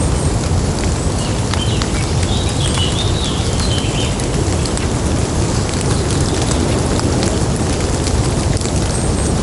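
Steady rain with water dripping off wet leaves, many separate drips ticking over a low rumble. A faint chirp wavers briefly about two to four seconds in.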